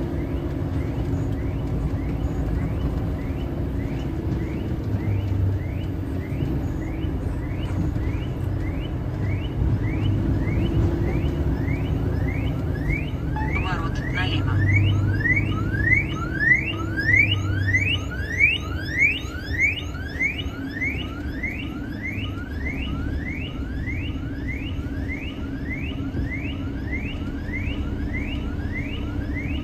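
Low, steady rumble of a truck's engine heard from inside the cab. Over it, a regular electronic chirping, about two short rising chirps a second, starts a few seconds in, grows louder toward the middle and keeps going.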